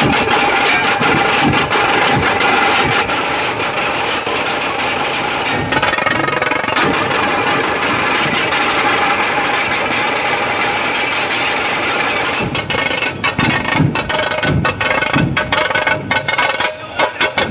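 Dhol-tasha drumming: rapid, continuous tasha rolls with heavy dhol beats, about two a second, near the start and again from about twelve seconds in.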